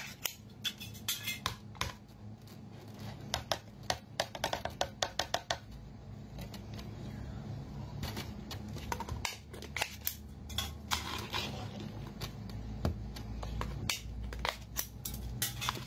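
Clear plastic food cups being handled: a lid peeled off and the food tipped out onto plates, in a scatter of sharp plastic clicks and crackles.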